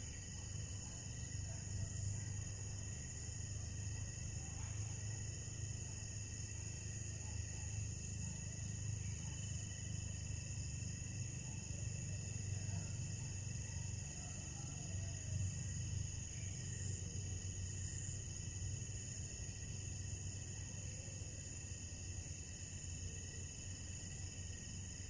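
Steady night chorus of crickets and other insects: several high, unchanging trills layered together, over a low rumble.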